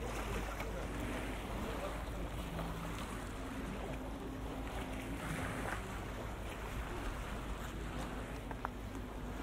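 Steady waterfront ambience: wind and the wash of river water, with a low hum that comes and goes underneath.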